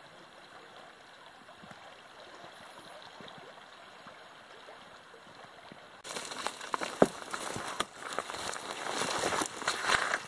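River water flowing, a steady even wash. About six seconds in it gives way to loud crackling and snapping of dry twigs and brushing of bare branches as someone walks through dense undergrowth, with footsteps on leaf litter and fingers rubbing on the camera near the end.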